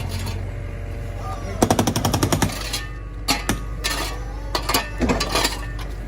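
Jackhammer (hydraulic breaker) attachment on a MiniZ 400 electric compact loader hammering: a rapid burst of blows, about a dozen a second, lasting about a second, then shorter irregular strikes, over a steady low hum.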